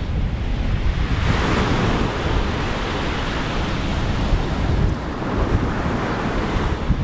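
Surf washing up a pebble beach: a broad rush of hiss swells about a second in, holds for several seconds and eases, with a shorter swell near the end. Wind buffets the microphone throughout as a low rumble.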